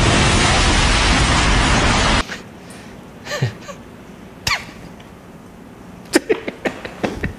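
A cartoon explosion sound effect, a loud dense blast that cuts off suddenly about two seconds in. Then, over quiet room tone, a man makes a couple of short breathy vocal noises and, near the end, a quick run of stuttering, clicky vocal sounds.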